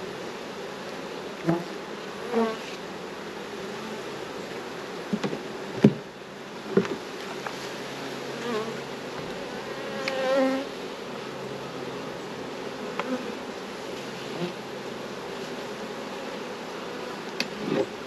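Honeybees buzzing steadily around an open hive, with single bees flying close past in rising and falling pitch. A few sharp knocks about five to seven seconds in are the wooden hive boxes being set down and shifted into place.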